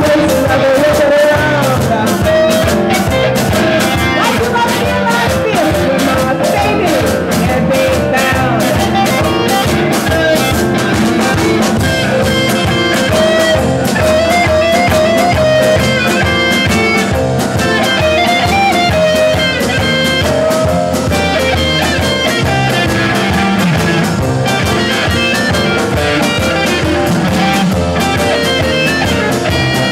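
Live blues band playing at full volume: electric guitar, keyboard and drum kit over a steady beat.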